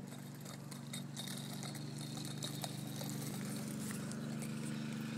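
Child's bike with training wheels rolling over a concrete sidewalk: a steady low rumble from the wheels with irregular clicks and rattles.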